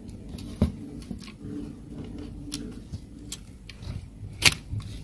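Scattered light clicks and knocks of plastic gears and metal parts being handled and fitted in a dot matrix printer's carriage and timing-belt mechanism, with one sharper click about four and a half seconds in.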